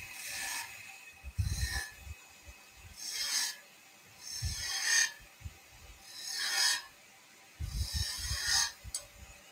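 Small skew chisel cutting a spinning wooden spindle on a lathe: six short hissing cuts, about one every one and a half seconds, with soft low knocks alongside some of them.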